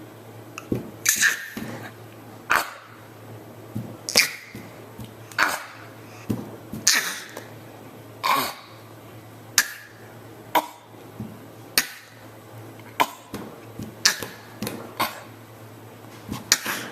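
A person's short, sharp coughs made on purpose, over and over, about one a second, more than a dozen in all.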